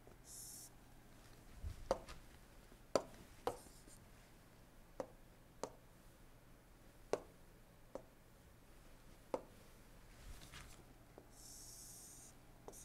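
Faint, irregular taps of a stylus on a tablet screen, about ten in all, with a short scratchy pen stroke just after the start and another near the end.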